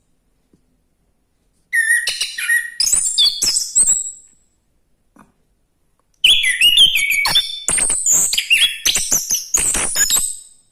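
Orange-headed thrush singing: two long bursts of rapid, varied whistled phrases with sharp clicks, the first starting about two seconds in and the second after a pause of a couple of seconds.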